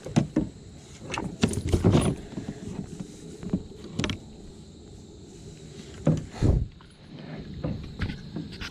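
Scattered knocks and rattles of tackle, the rod and hands against a kayak's hull while a freshly caught fish is handled, with a couple of heavier dull thumps about six seconds in.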